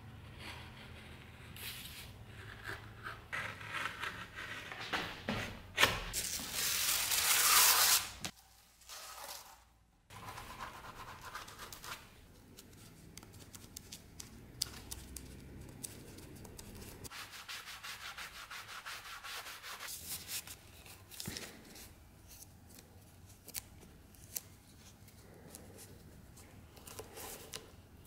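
Glued black leather being rubbed, pressed and scraped by hand along a sword scabbard, in a run of irregular rubbing and scraping sounds. They are loudest for about two seconds a quarter of the way in.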